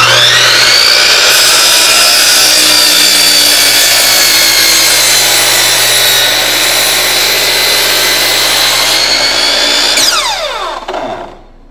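Sliding compound miter saw switched on, its motor whine rising to full speed within about a second, then running steadily as the blade is drawn out and lowered through a 2x4 at a 45-degree angle. About ten seconds in the trigger is released and the blade winds down with a falling whine.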